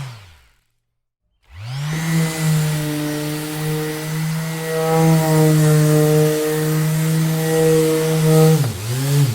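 Electric orbital sander switched off and winding down to silence, then switched back on about a second and a half in, spinning up to a steady running hum. Near the end its motor speed dips and recovers several times in quick succession.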